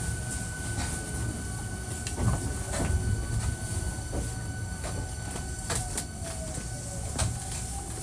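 Hankyu 1300 series electric train running, heard from inside the car: a steady rumble with a steady high whine and sharp clicks of the wheels over rail joints, and a faint tone sliding slowly down near the end.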